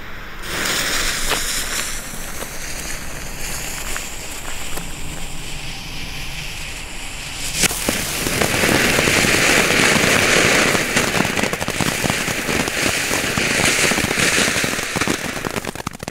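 Small Red and Green ground fountain with chrysanthemum effect burning: a steady hiss that starts just after lighting. About halfway through the hiss grows louder, thick with small crackling pops.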